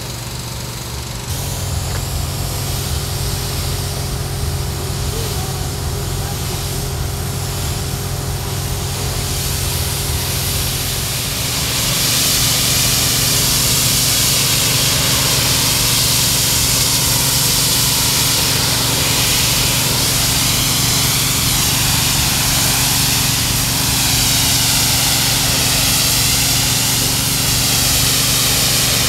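Pressure washer running: a steady motor hum, then from about twelve seconds in a loud, even hiss as the water jet blasts the granite wall, washing off graffiti that a chemical remover has loosened.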